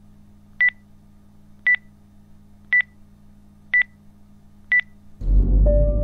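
Film-leader countdown sound effect: a short high beep about once a second, five times, over a faint low steady hum. About five seconds in, a loud deep rumble hits and music with sustained notes comes in.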